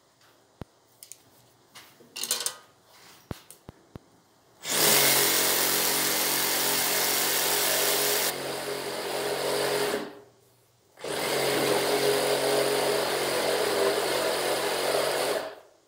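Makita cordless brushless reciprocating saw cutting a curve through a thick wooden slab, in two runs of about five and four seconds with a short stop between. A few light clicks and taps come before the saw starts.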